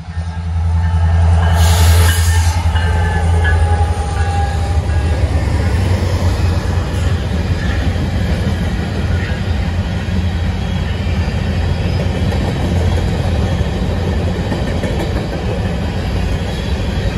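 Diesel freight train passing close by: the lead locomotives' engines come up loud within the first second with a deep steady hum, then a long string of covered hopper cars rolls past with steady wheel-on-rail noise.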